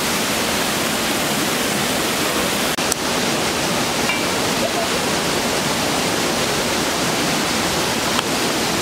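Steady rush of river water pouring over falls, an even wash of water noise, broken by a momentary dropout about three seconds in.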